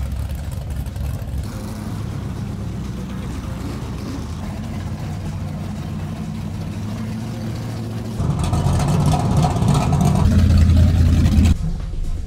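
American muscle car engines running at low revs with a steady low rumble, then a louder, fuller run of engine noise from about eight seconds in that cuts off suddenly a few seconds later.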